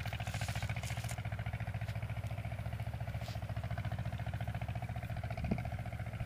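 An engine running steadily with a fast, even chugging pulse. There is a short knock about five and a half seconds in.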